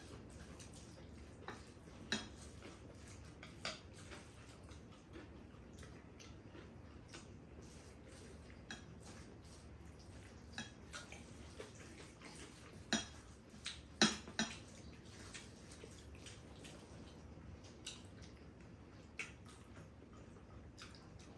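Spoons clinking against dishes while eating: scattered light taps, a few louder ones a little past the middle, over a faint steady hiss.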